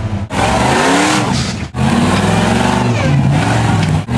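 Off-road vehicle engine revving in rising and falling pulls under load. The sound cuts out briefly about a third of a second in and again just under two seconds in.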